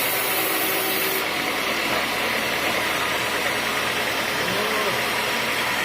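Sawmill machinery running steadily with a constant engine-like drone; a high hiss drops away about a second in.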